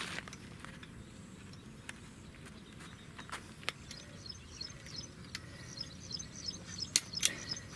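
Scattered clicks and knocks from a folding accordion-style gazebo frame being pulled open and raised, the loudest two close together near the end. A rapid, high chirping runs behind it from about halfway on.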